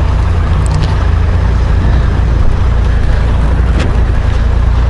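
Honda Gold Wing GL1500's flat-six engine running steadily at low revs while the bike is manoeuvred at walking pace.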